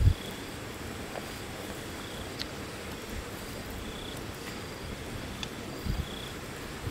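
Short high insect chirps repeating about every two seconds over a steady background hiss, with the campfire crackling faintly now and then. A low thump right at the start is the loudest sound.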